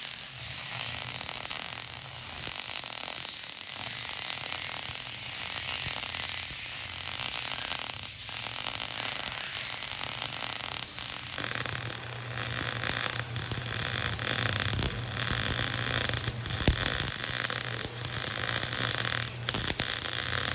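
Workshop machinery running steadily: a continuous hiss over a low hum, getting louder and changing tone about eleven seconds in.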